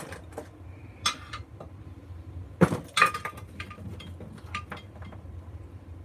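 Small metal scrap parts and hand tools clinking and knocking on a wooden workbench, including a cordless impact driver being set down. There are a few sharp knocks, the loudest about two and a half seconds in, with lighter clinks between them.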